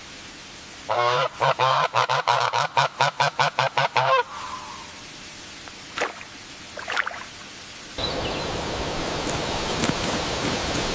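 An animal giving a quick run of honking calls, about five a second for roughly three seconds. A couple of short single sounds follow, then a steady rustling noise from about eight seconds in.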